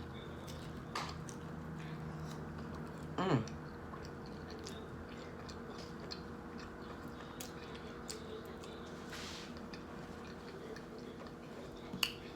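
Person chewing a bite of grinder salad sandwich close to the microphone: soft wet chewing with small mouth clicks over a steady low hum. There is a brief sound falling in pitch about three seconds in, and a sharper click near the end.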